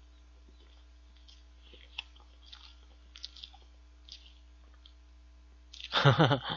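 Faint, soft chewing and small mouth clicks from a man eating a bite of cheesecake. Near the end, his voice comes in loudly and briefly.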